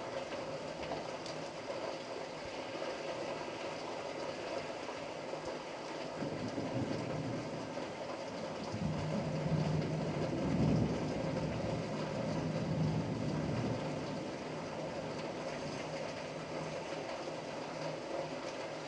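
Steady rain hiss with a long, low thunder rumble that swells about a third of the way in, peaks near the middle and fades away a few seconds later.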